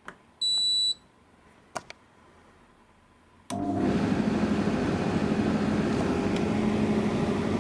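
Hoover H-Dry 300 condenser tumble dryer's control panel gives one high beep about half a second in, followed by a click; at about three and a half seconds the dryer starts up and runs with a steady motor and fan hum.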